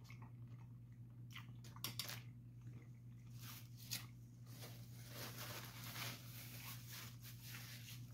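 Faint, wet mouth sounds of a person chewing a bite of cheeseburger, with a few soft smacks, over a steady low hum.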